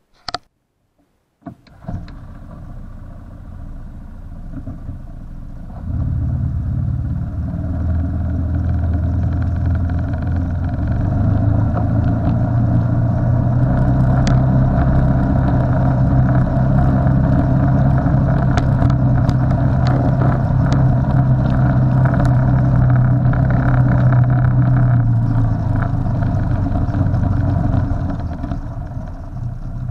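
Vehicle engine running while driving over a grassy yard, picked up close by a camera mounted on the hood. It comes in about a second and a half in, gets louder a few seconds later, runs steadily, and eases off near the end.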